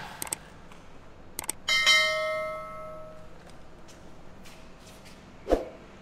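A chime-like notification bell rings out sharply and fades over about a second and a half, just after a couple of short clicks; this is the sound effect of an on-screen subscribe-button animation. A single sharp knock comes near the end.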